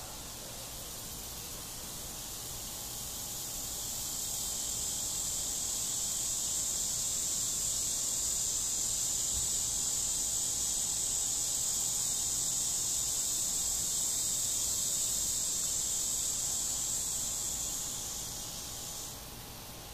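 Insect song: a high, steady buzz that swells over the first few seconds, holds, then fades and stops shortly before the end.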